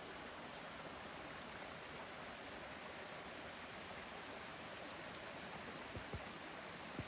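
Steady rush of creek water running under and around the ice toward the falls, with a few soft low thumps near the end.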